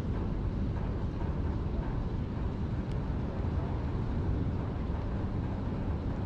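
Steady low outdoor rumble with a faint single click about three seconds in.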